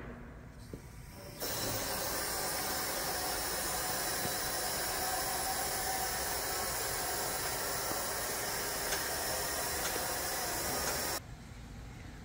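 Rotary two-post vehicle lift lowering a pickup truck, its lowering valve held open and giving a steady hiss. The hiss starts about a second and a half in and cuts off suddenly near the end.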